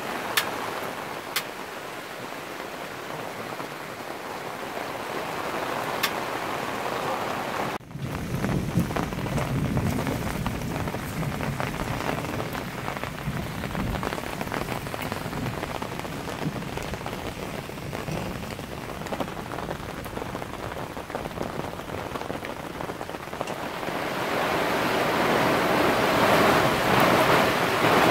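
Heavy summer shower pouring down steadily, with a few sharp drop hits in the first seconds. It grows louder near the end as the rain beats on a fishing parasol canopy.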